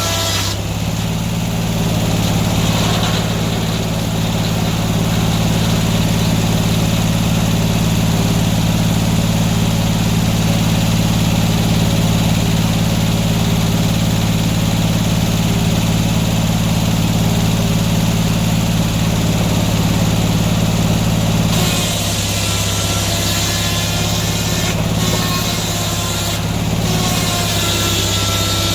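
Sawmill engine running steadily under load. About 22 seconds in the sound changes and a high whine with several tones joins it.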